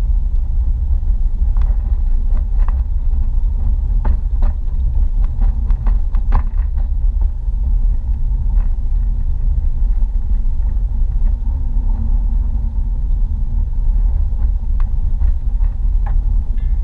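Steady low rumble of a car driving in traffic, heard from inside the cabin, with a few light clicks or rattles scattered through it.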